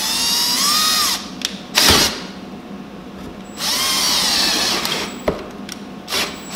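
Cordless drill run in short trigger bursts while widening a hole through an RV's fiberglass wall. There are two main runs of about a second and a half, each with a motor whine that rises in pitch as it spins up, with brief blips and sharp clicks between them.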